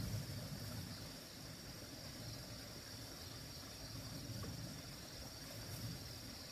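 A steady, high-pitched chorus of insects shrilling without a break, with a low rumble underneath that swells briefly at the start.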